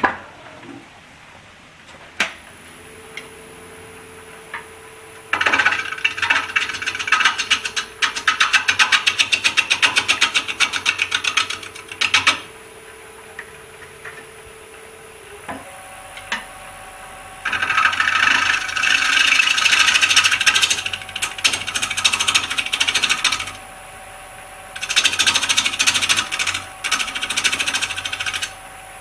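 Wood lathe running with a steady motor hum while a turning tool faces a spinning black walnut coaster blank: three long bursts of loud scraping cutting noise with a fast rattle as the tool meets the wood. The hum steps up in pitch about halfway through.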